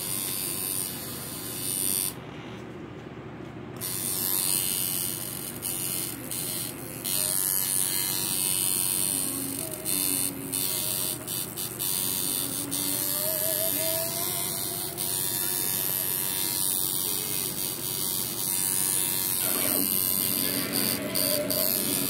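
An electric tattoo machine buzzes steadily as it drives the needle into the skin while shading a forearm. It pauses briefly about two seconds in, then carries on.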